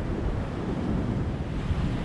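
Ocean waves washing and breaking on a beach in a steady surf noise.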